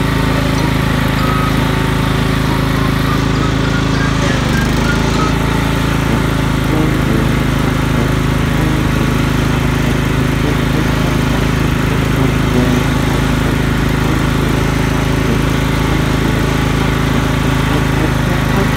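Riding lawn mower's small engine running steadily, close by.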